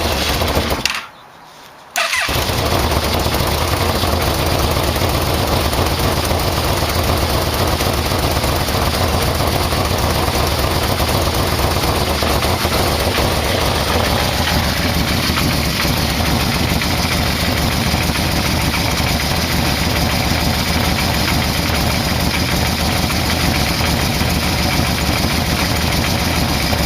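Yamaha VMax motorcycle's V4 engine cranking briefly, catching about two seconds in, then idling steadily with a slight change in tone about halfway through. Its carburetors are out of sync.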